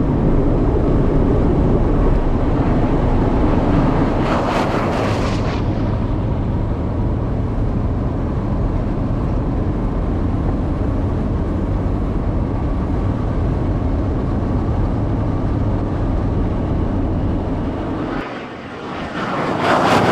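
Genovation GXE all-electric Corvette at high speed: steady wind and tyre roar inside the cabin, with no engine note and a brief louder rush about four seconds in. Near the end the car passes by outside with a rushing sound that swells, peaks and fades.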